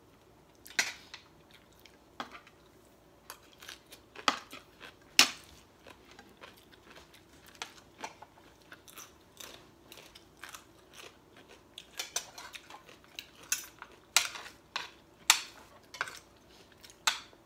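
Metal spoons and forks clinking and scraping against ceramic plates at irregular intervals as two people eat, with some chewing; the loudest clink comes about five seconds in.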